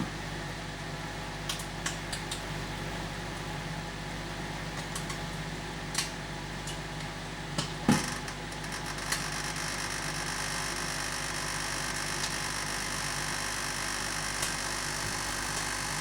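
Microwave oven running with a steady hum, an egg cooking inside, broken by a handful of short sharp clicks. The hiss grows a little brighter about nine seconds in.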